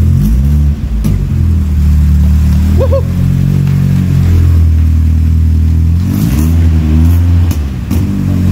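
Peugeot 206 autocross car's engine running at idle, with two short rises and falls in revs, about a second in and about six seconds in, and a few sharp clicks.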